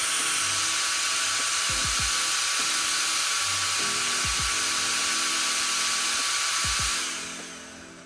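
Nitecore BB21 electric air blower running at its highest setting, its turbine blowing a steady, loud hiss of air with a thin steady whine in it. Near the end it switches off and the sound fades away over about half a second.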